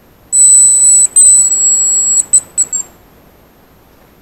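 Hazel grouse whistle lure blown close by, imitating the cock's song to call up a hazel grouse: two long, high thin whistles followed by three short notes.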